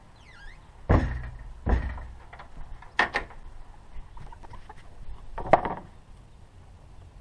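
Wooden thuds and knocks as the hinged access panel of a wooden chicken coop is swung shut and fastened, two heavy thuds close together about a second in, then lighter knocks. A brief high chirp sounds just before, and another loud knock comes late on.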